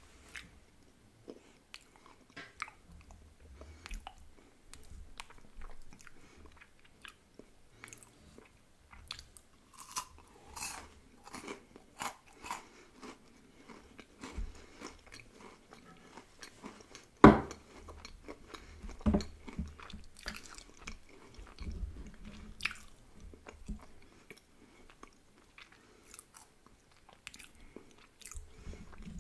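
Close-miked chewing and biting of ice cream and crisp Kinder Bueno White wafer: wet mouth sounds with many small crackles and crunches. One much louder sharp crunch comes a little past the middle, and a few stronger ones follow.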